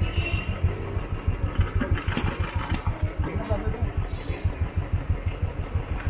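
Small engine of a sugarcane juice crusher running steadily, with an even low pulsing of about eight to nine beats a second. Two brief sharp clinks come about two seconds in.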